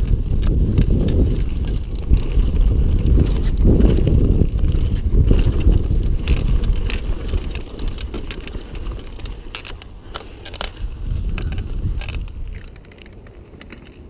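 Mountain bike riding down a rough trail: wind buffets the microphone with a heavy rumble, and the tyres and frame give off a stream of clicks and rattles over the ground. It grows quieter in the second half and drops off further near the end.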